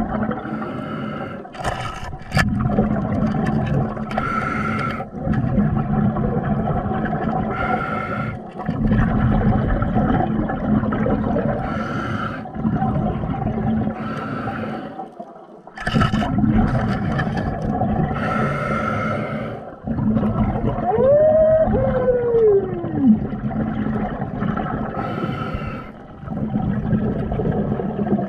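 A diver breathing underwater: breaths and exhaled bubbles in a slow cycle, one every three to four seconds. A little past the middle comes one squeal that falls in pitch over about two seconds.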